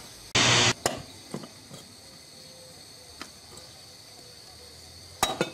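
Metal casting mould for lead diving weights being knocked to free the cast lead weight. A loud burst of noise about a third of a second long comes near the start, then scattered sharp knocks, and a quick pair of knocks near the end.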